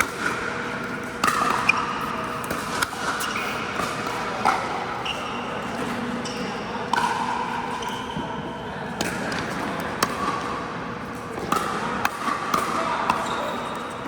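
Pickleball rally: paddles striking the hard plastic ball and the ball bouncing on the court, sharp pops at irregular intervals of roughly one to two seconds, with short high shoe squeaks on the court floor.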